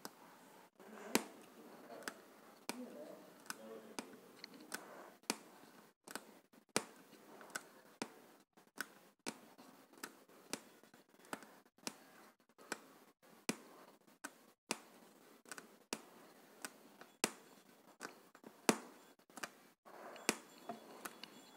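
Aari hook needle punching through fabric stretched taut on an embroidery frame while small chain stitches are worked. Each stitch gives a sharp tick, about three ticks every two seconds.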